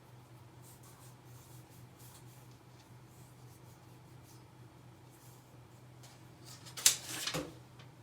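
Faint steady low hum, then about seven seconds in a sharp click followed by a brief rubbing scrape, as an object is handled against a surface.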